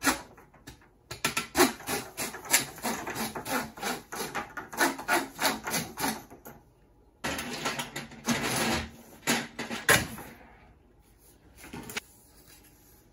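Stiff coaxial cable and plastic plumbing pipe being handled, the cable scraping and knocking against the pipe in quick rubs and clicks. It comes in two long spells with a short pause between them and stops about ten seconds in.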